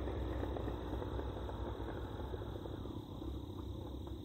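Exhaust of Yamaha FZ-09 inline-three motorcycles fitted with M4 slip-ons, a low rumble in the distance that slowly fades as the bikes ride away.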